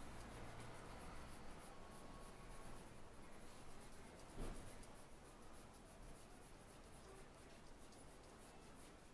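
Faint scratching of a pencil shading on paper, with one soft knock about four and a half seconds in.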